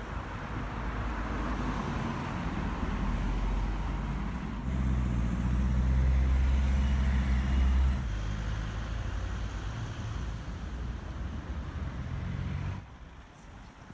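A motor vehicle's engine running nearby: a low, steady rumble that gets louder for a few seconds around the middle and cuts off suddenly near the end.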